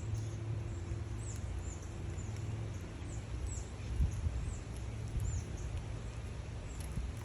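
Small birds calling repeatedly, short high chirps that slur downward, about one or two a second, over a steady low rumble and a few light clicks.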